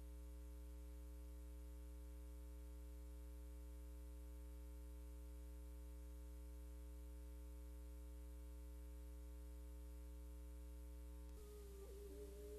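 Faint, steady low electrical hum with a buzz of overtones, typical of an old videotape transfer. About eleven seconds in it stops and a held, even musical tone begins as the opening music starts.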